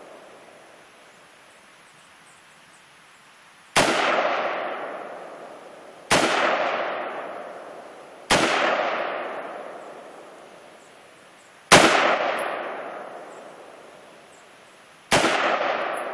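Five single shots from an AR-15 rifle, fired at uneven intervals of two to three and a half seconds, starting about four seconds in. Each shot is followed by a long echo that slowly fades.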